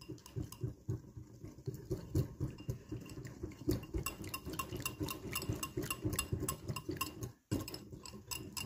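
Wire whisk beating a thick sauce in a glass bowl: rapid, uneven clicking of the metal tines against the glass.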